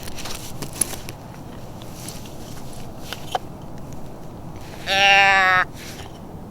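A deer bleat call, a doe bleat can, sounding once about five seconds in: a single nasal bleat lasting under a second. Before it there are only faint rustles and a couple of small clicks.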